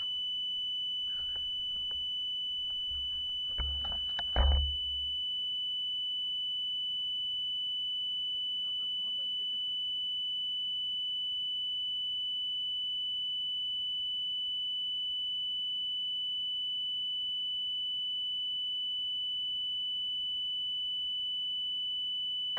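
A steady, unbroken high-pitched electronic tone from a powered-up FPV racing drone sitting before takeoff, with a few brief handling knocks about four seconds in.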